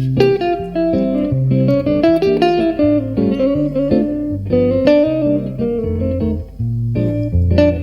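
Jazz guitar playing alone: plucked chords over a bass line that steps to a new low note about every half second, in a bebop style.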